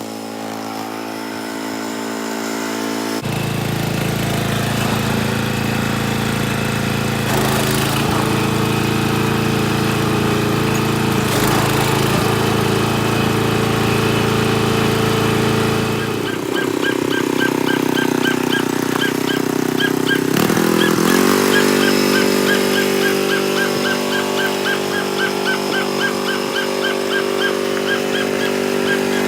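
Riding lawn mower engine running steadily, its pitch shifting a few times as the throttle or load changes. A quick, regular high ticking joins about halfway through.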